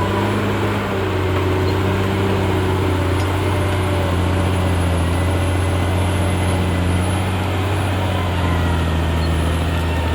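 Caterpillar D6R XL bulldozer's diesel engine running steadily at a constant pitch.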